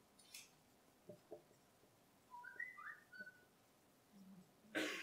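Near silence, broken by a marker writing on a whiteboard: a few faint ticks, a cluster of short high squeaks about halfway through, and a short scratchy stroke near the end.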